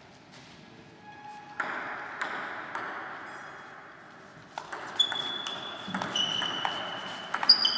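Table tennis ball clicking: three single taps about half a second apart, then a quick rally of ball-on-bat and ball-on-table clicks from a little past halfway, the loudest near the end. High squeaks sound through the rally, and the clicks echo in a large hall.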